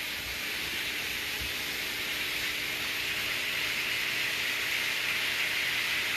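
Shrimp and vegetable stir-fry sizzling in oil in a hot pan on high heat: a steady frying hiss that grows slightly louder.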